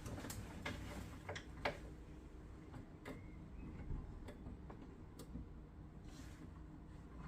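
Irregular light clicks and taps of tools and small boiler parts being handled, the sharpest about a second and a half in, over a faint low steady hum.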